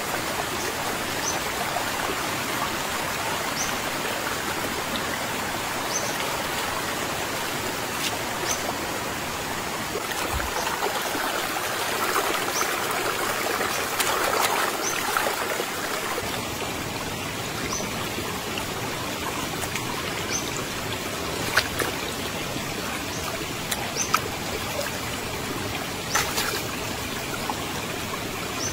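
Steady rush of a flowing jungle stream. A short high chirp repeats about every two seconds, and a few sharp knocks come in the second half.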